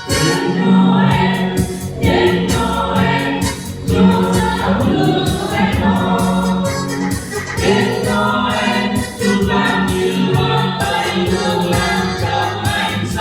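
Church choir singing a Christmas carol in Vietnamese, over accompaniment with a steady beat.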